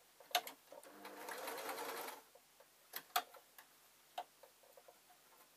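Sewing machine stitching in one short run of about a second, starting about a second in, hemming a small piece of fabric. A few sharp clicks come before and after it.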